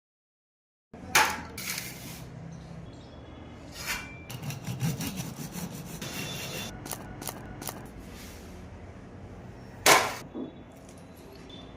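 A serrated knife sawing through a crisp baked biscotti log on a wooden board: rasping scrapes and crunching clicks, with sharp knocks of the knife and slices on the board, the loudest near the end.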